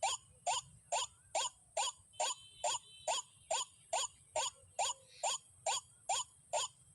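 White-breasted waterhen (dahuk) calling: a steady, evenly spaced series of short notes, a little over two a second.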